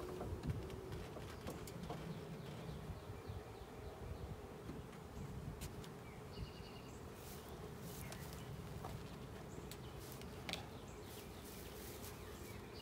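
Honey bee swarm buzzing in a steady hum, with a few faint clicks.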